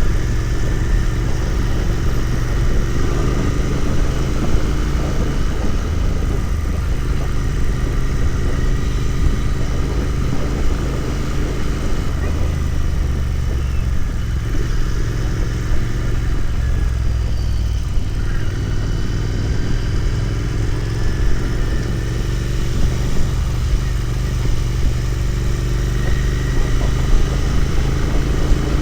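Royal Enfield Continental GT 650's 648 cc parallel-twin engine running while the motorcycle is ridden, its pitch rising several times as the bike speeds up.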